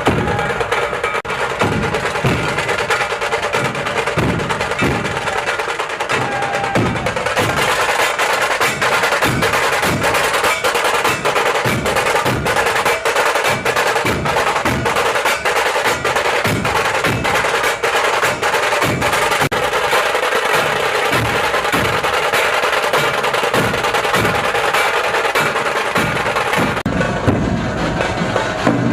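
Percussion-driven music with a steady beat and rapid sharp hits, growing fuller about seven seconds in.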